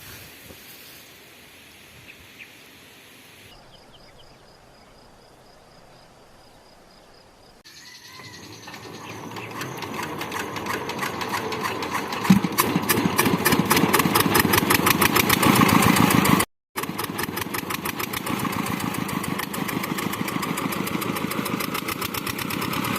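A rice thresher's engine starting up and running with a rapid, even pulse, coming in about a third of the way through and growing steadily louder. Before it there is only faint outdoor ambience, and the machine noise drops out for an instant about two-thirds of the way through.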